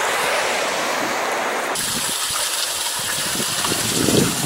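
Little Qualicum River rushing steadily below the bank. After a sudden change under two seconds in, the rush is fainter and low, gusty rumbling of wind on the microphone builds toward the end.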